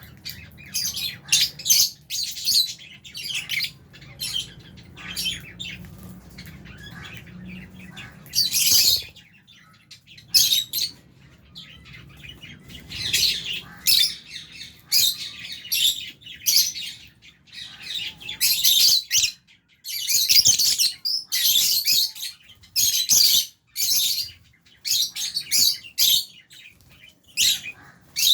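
A flock of lovebirds chirping: many high, shrill calls overlapping in bursts. A faint low hum underneath stops about nine seconds in.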